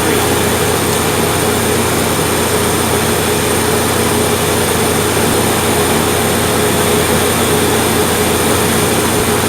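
A 2001 Saturn SC's four-cylinder engine running steadily, being run to circulate the A/C system's UV dye so the leak shows.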